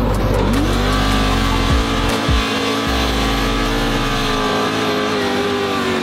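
LSX V8 drift car engine heard from inside the cabin, revving up about half a second in and then held at high revs, its pitch sagging slightly near the end.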